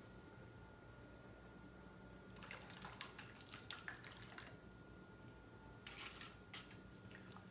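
Quiet handling of a plastic sippy cup of mixed infant formula: a cluster of small clicks and liquid noises in the middle, then a few sips from the cup near the end, over a faint steady hum of room tone.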